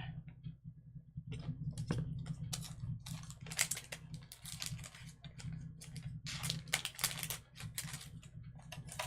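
Irregular light taps, clicks and paper rustles of small craft pieces being handled on a desk, as adhesive foil gems are peeled off their sheet and pressed onto a paper card. A steady low hum sits underneath.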